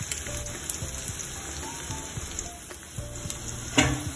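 Sliced onions sizzling as they fry in oil in a steel kadai, stirred with a silicone spatula, being browned to golden for biryani. A single sharp knock comes near the end.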